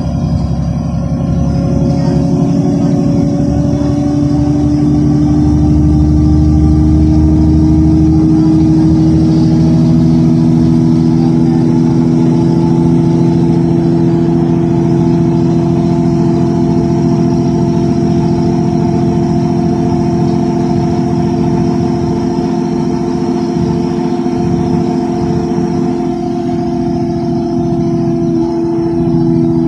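Solaris Urbino 10 III city bus heard from inside the passenger cabin while driving: a steady engine and drivetrain drone over road rumble. Its pitch rises slowly over the first several seconds, then holds level.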